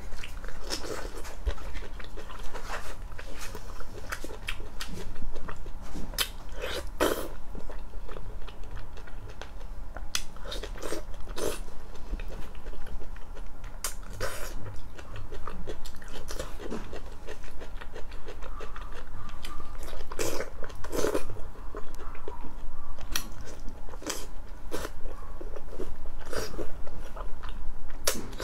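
Close-up eating sounds: crunchy bites into crispy fried pork, with chewing and irregular crisp crackles throughout.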